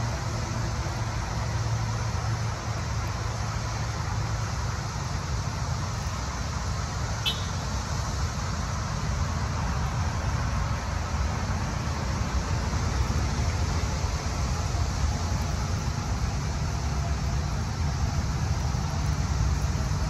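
Steady drone of interstate highway traffic, strongest at the low end and unchanging throughout.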